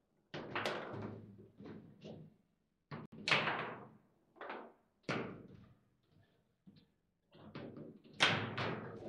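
Foosball match in play: irregular sharp knocks and clacks as the ball is struck by the rod figures and bangs around the table, coming in quick clusters with short gaps. The hardest knocks come about three seconds in and near the end.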